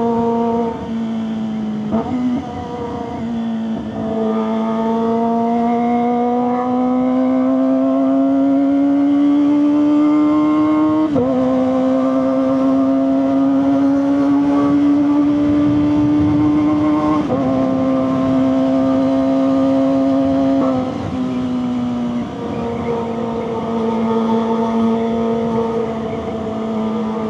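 Kawasaki ZX-25RR's 250cc four-cylinder engine running through a Leovince GP Corsa aftermarket exhaust while riding. The engine note climbs slowly under light throttle and drops sharply at each gear change, about four times: near the start, near the middle, about two-thirds through, and again shortly after.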